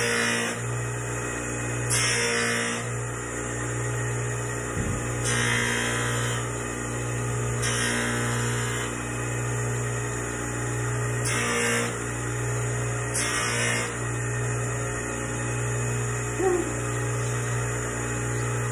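Bench polishing grinder running with a steady motor hum, its rouge-charged buffing wheel polishing a small stainless steel piece. About six passes of a second or so each come every couple of seconds, and each adds a hiss of metal against the wheel.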